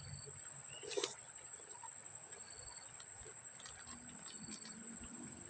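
Insects calling: a steady high-pitched drone with short pulsed chirps repeating every second or two, and a single soft knock about a second in.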